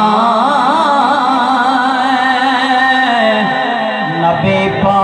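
A man singing a naat, a devotional Islamic poem, in a solo voice with long ornamented held notes that waver in pitch. The line breaks briefly a little past four seconds in, then the singing picks up again.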